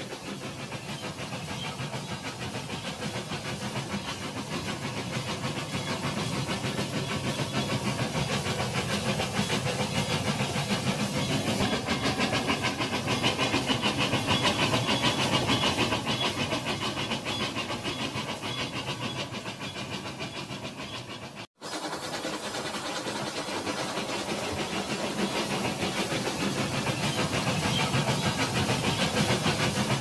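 Rail King remote-control toy train running along plastic track through shallow water: a steady rattling hiss of its small motor, wheels and the water around the track. It cuts out for an instant about two-thirds of the way through.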